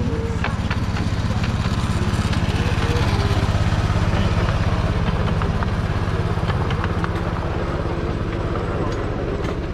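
Small engine of the miniature railway locomotive "TIM" running steadily as it pulls the riding cars, swelling a little partway through, with a few light clicks from the train.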